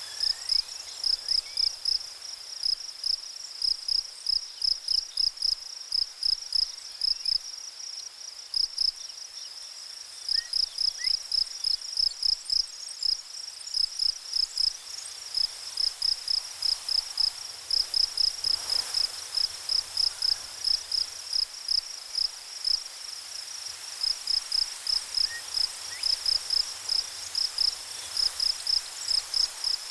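An insect chirping loudly and steadily in short, high, evenly spaced pulses, about two or three a second, with a brief break about nine seconds in.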